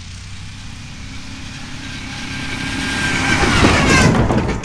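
1997 GMC Sierra 1500's 4.3L Vortec V6 revving up as the truck accelerates, getting louder with a rising pitch, then easing off near the end, with a rattle the driver puts down to the exhaust. The engine is missing on one cylinder because a spark plug wire is missing.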